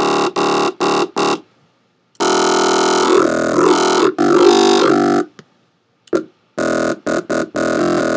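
Distorted synthesized bass from FM8, run through a saturator and a peaked EQ, played as short chopped stabs, then one longer held note whose tone shifts and wavers, then more chopped stabs.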